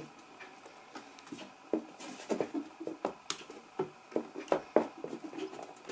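Irregular light metallic clicks and knocks as the metal case of a 1930s Burroughs Class 8 adding machine is worked loose and lifted off its mechanism.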